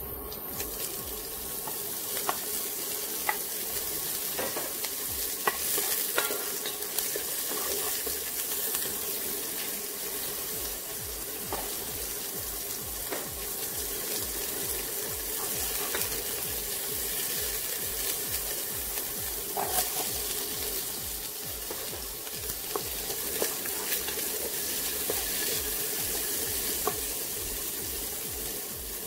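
Diced carrot and other vegetables sizzling as they sauté in melted butter in a granite-coated pot. A wooden spoon stirs them, with scattered scrapes and taps on the pan.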